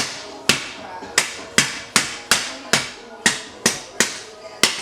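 Hammer blows, about a dozen in quick succession at roughly two to three a second, each a sharp strike with a short ring. The hammer is driving a part of a short-shifter and bushing assembly into place.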